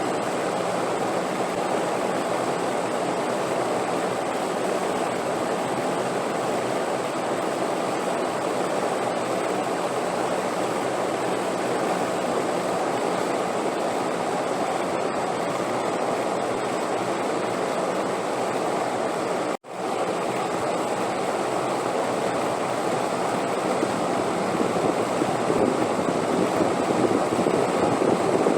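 Steady, even rushing wind noise from a relaxation sleep track, cutting out for an instant about two-thirds of the way through and growing slightly louder near the end.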